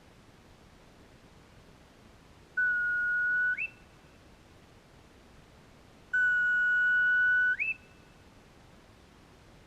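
A whistle blown twice: two long, steady notes, the second longer, each ending with a quick flip up in pitch.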